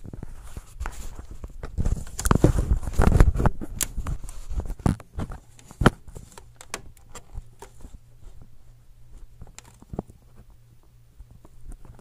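Handling noise from the recording device: rustling with a quick run of knocks and clicks, loudest between about two and four seconds in. After that come sparser, lighter clicks over a steady low hum.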